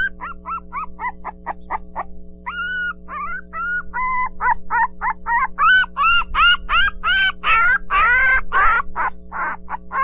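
Puppies yipping and whimpering in a quick run of short, high calls, several a second, growing louder and harsher past the middle. Under them sits a steady background tone.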